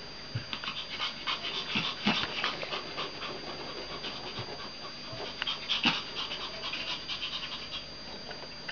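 Puppies playing: panting and scuffling, with many quick clicks of claws on a tile floor, busiest in two spells.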